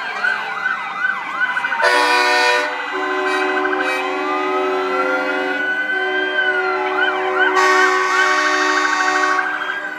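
Several tow-truck sirens sounding at once, a slow rising and falling wail over fast yelping warbles, while truck horns hold steady tones from about two seconds in until near the end.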